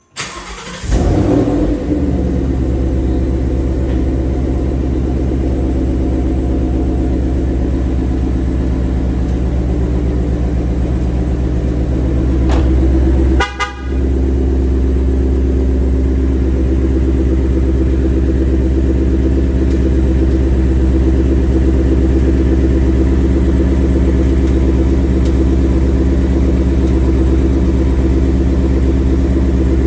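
2021 Ford Mustang GT's 5.0-litre V8 starting and settling into a steady idle while still cool, with the typewriter tick the owner hears from the engine, which he takes for a characteristic of the car rather than a fault. The sound breaks off briefly about 13 seconds in, then the idle carries on.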